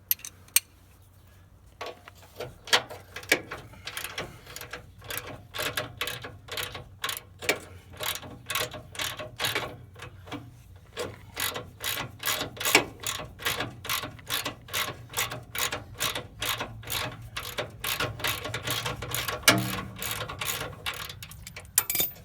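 Socket ratchet wrench clicking in a steady run of about two to three clicks a second as a freshly broken-loose nut on a control-arm bolt is backed off.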